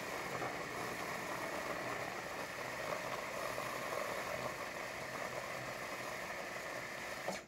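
Terra Kafe TK-01 super-automatic espresso machine's milk frothing system running, foaming milk-system cleaner into the cup: a steady hum with hiss that cuts off suddenly near the end as the cup fills.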